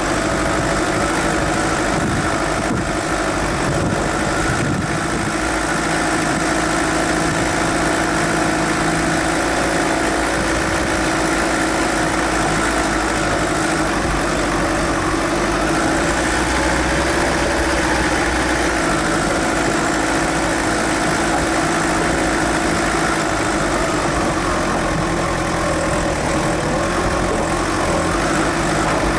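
Suzuki Grand Vitara 2.0 turbodiesel engine running steadily as the 4x4 drives over a rocky dirt track, heard from a camera on the bonnet.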